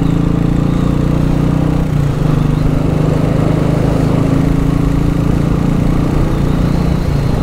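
Royal Enfield Bullet's single-cylinder engine running steadily under way at cruising speed, with a brief dip about two seconds in.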